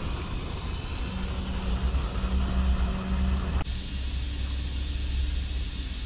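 Top-loading washing machine filling, water hissing into the drum over a steady low hum. The sound changes abruptly a little past halfway, when a midrange hum drops out.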